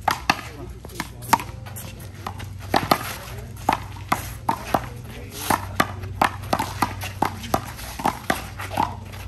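Handball rally: a small rubber handball slapped by hand and smacking off the wall, a run of sharp, irregular smacks about two a second.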